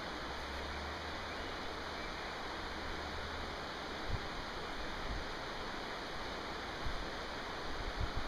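Steady rush of flowing water from a stream, with a few soft low thumps about halfway through and near the end.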